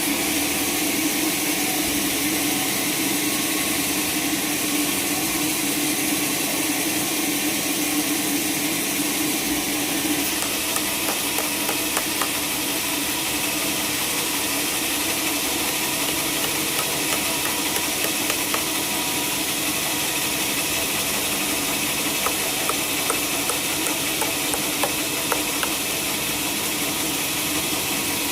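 Sawmill machinery running steadily: a continuous hissing noise over a low hum, with scattered small ticks from about ten seconds in.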